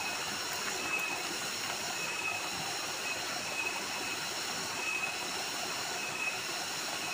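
Small waterfall splashing into a stream pool: a steady rushing hiss. A short high chirp repeats about every second or so.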